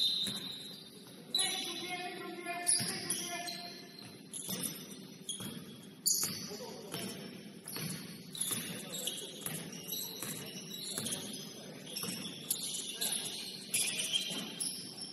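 Basketball game in play: sneakers squeaking on the court and the ball bouncing, with irregular sharp knocks and short high squeaks throughout.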